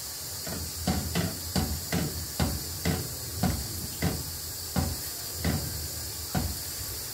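A small cup tapping and scraping on a flat pan as batter is spread outward in a spiral, about a dozen short knocks. The knocks come in quick succession at first and slow down towards the end.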